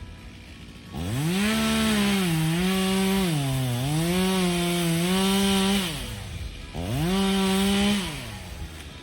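Two-stroke chainsaw revved to full throttle about a second in. Its pitch sags and recovers a few times before it drops back to idle. It is revved again briefly and falls back near the end.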